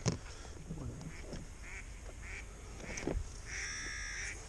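Waterbirds calling: a few short calls, then a longer drawn-out call near the end. A single knock comes about three seconds in.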